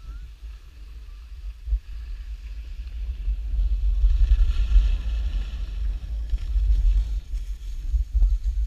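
Wind buffeting an action camera's microphone while skiing downhill, with the hiss of skis sliding over snow. It grows louder over the first few seconds and stays loud.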